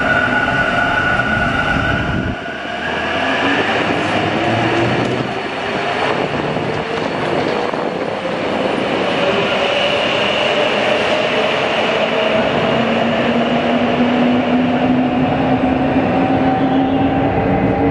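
Translohr STE 6 rubber-tyred tram pulling away from an underground platform. A steady high tone stops about two seconds in, then the traction motors whine, rising slowly in pitch as it speeds up, over a constant rumble.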